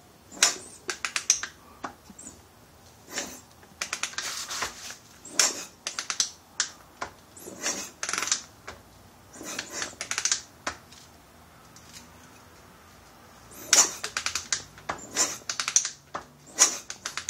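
Short bursts of rapid mechanical clicking, about a dozen, at uneven intervals, from a Honda motorcycle engine being turned over by hand with its spark plug removed.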